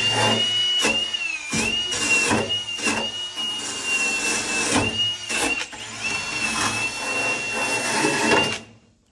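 Cordless power tool spinning a wire wheel against the steel floor pan, stripping it to bare metal to prepare it for welding. A high motor whine holds steady and sags briefly each time the wheel bites, over a harsh scraping with many short hits, then stops near the end.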